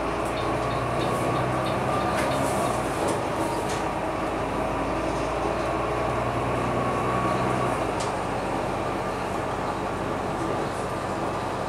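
Volvo B9TL double-decker bus heard from inside the lower deck while driving: its six-cylinder diesel engine and drivetrain running steadily, with the engine note changing about three seconds in and again about eight seconds in. Light interior rattles tick over it early on.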